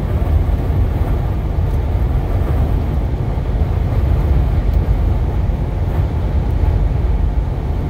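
Steady low rumble of high winds buffeting a vehicle, heard from inside the cab.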